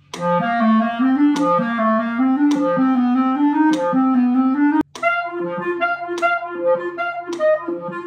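Clarinet playing a technical practice study at a slow, even tempo: rising runs of separate notes, then, after a brief break just before five seconds in, repeated leaps between low and high notes. A metronome ticks about once a second throughout.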